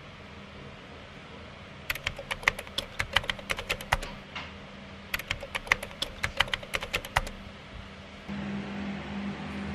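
Keyboard typing sound effect: two runs of quick key clicks, each about two seconds long and a second or so apart, over a steady low hum.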